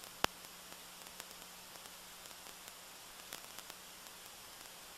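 Steady electronic hiss with a faint hum from a camcorder microphone that has cut out, so the pressure washer spray is not heard. One sharp click comes about a quarter second in, and a few faint crackles follow around three seconds in.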